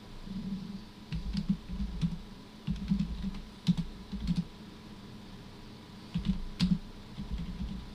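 Computer keyboard typing: three short bursts of keystrokes, as short shell commands are typed in.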